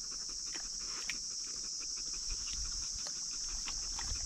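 A sighthound lapping water from a bowl, with small irregular splashes and clicks, over a steady high-pitched insect drone.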